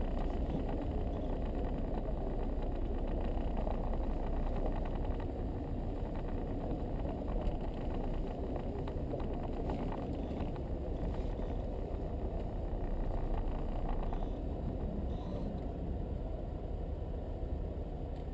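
Land Rover Defender 90's engine running steadily at low speed as the vehicle creeps forward.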